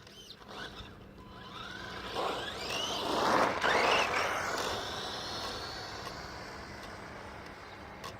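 Tamiya RC buggy's motor whining as the car speeds up and runs past, its pitch rising and falling, loudest about three to four seconds in, then a steadier whine that slowly fades.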